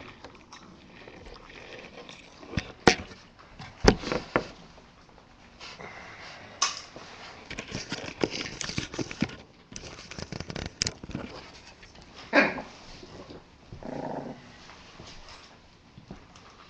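Bulldog puppies making small animal sounds as they move about, with a few sharp clicks and knocks scattered through. The loudest knocks come about three, four and twelve seconds in.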